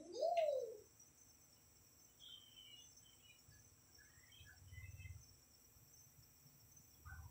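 Crickets keeping up a steady high-pitched drone, with a few faint short chirps. A short voice-like call that rises and then falls opens the stretch and is the loudest sound, and faint low rumbles come about two-thirds of the way through and again near the end.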